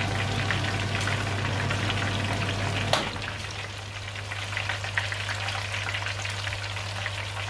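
Whole chicken deep-frying in a pot of hot oil: a steady, dense sizzling and crackling of bubbling oil over a low steady hum, with one sharp click about three seconds in.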